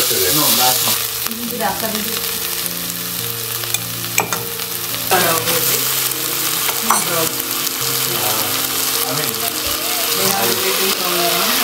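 Food sizzling and frying in hot oil in a pan, stirred now and then, with a few sharp clicks. Soft background music with held notes plays underneath.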